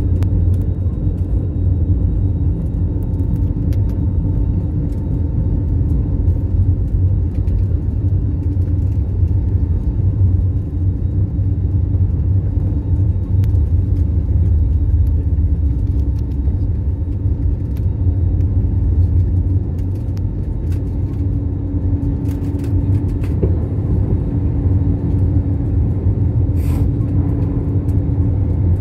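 Airliner engine noise heard inside the passenger cabin during takeoff: a loud, steady low rumble with a steady hum on top.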